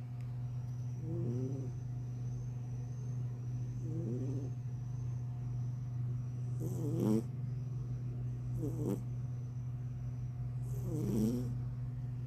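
Orange cat snoring in its sleep, a short snore every two to three seconds, five in all; the two near the middle and end are louder with a breathy hiss. A steady low hum runs underneath.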